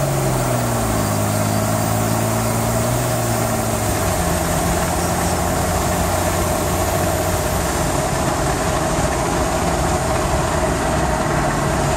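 1999 Cummins 5.9-litre 24-valve diesel in a Ford F350, tuned with an Edge Juice comp box, running; its engine note drops in the first second or so and then holds steady.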